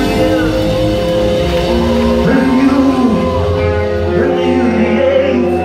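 Live rock band playing at full volume, with a lead vocal sung in long, wavering held notes over amplified guitars.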